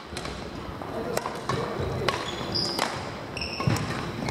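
Badminton rally on a wooden indoor court: a string of sharp racket-on-shuttlecock hits, with short high shoe squeaks and footfalls on the floor.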